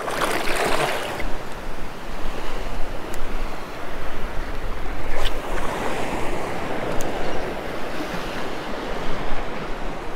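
Small surf waves washing and breaking around a wader's legs in shallow sea water, with a burst of splashing in the first second. Wind rumbles on the microphone.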